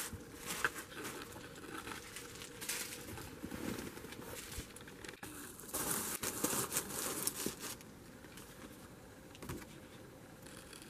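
Tissue paper and plastic packing wrap crinkling and rustling as wrapped items are pushed into a cardboard shipping box, loudest about six to seven and a half seconds in.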